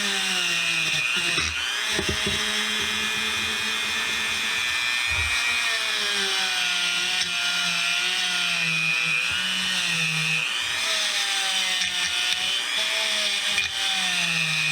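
Handheld power tool motor, drill-like, running continuously as it works into the corners of a vise body. Its pitch wavers up and down with the changing load.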